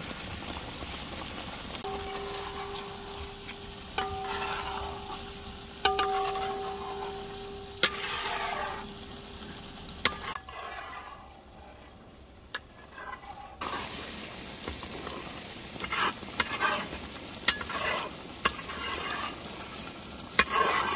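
A metal spatula stirs and scrapes boiled eggs through thick, sizzling masala in a large metal pan, in repeated short strokes. A steady tone hums under it from about two seconds in until about ten seconds, and the stirring eases off for a few seconds before scraping again near the end.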